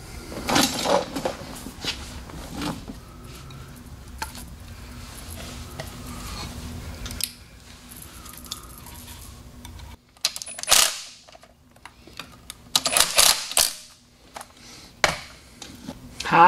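Scattered metallic clinks and taps of bolts and hand tools being handled while bolts are fitted to the front of a bare engine, coming in several short clusters.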